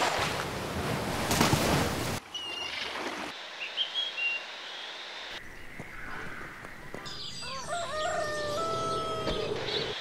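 A string of short nature recordings cut one after another: first a rush of noise, then scattered high bird chirps, and from about seven seconds in a rooster crowing, one call that rises and then holds.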